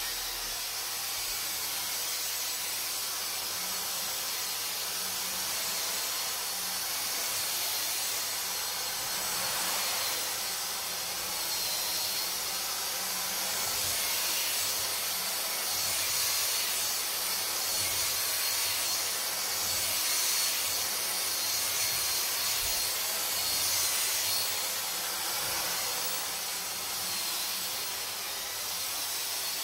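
Dyson DC44 cordless stick vacuum running on carpet: a steady rush of airflow with a thin high motor whine over it, the level rising and falling slightly.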